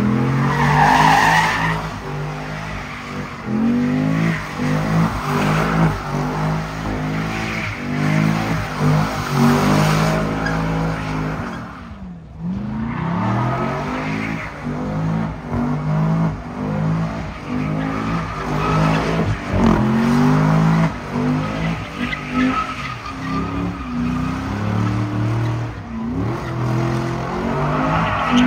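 Fifth-generation Chevrolet Camaro doing burnouts and donuts: the engine revs up and down hard while the rear tyres squeal and spin on the pavement. About halfway through, the revs drop away for a moment, then climb again.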